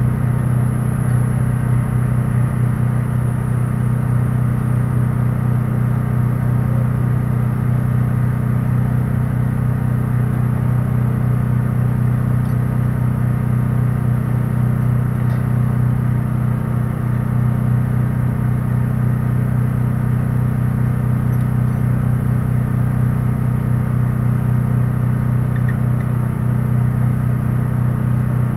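An engine idling steadily: a low, even hum that doesn't change.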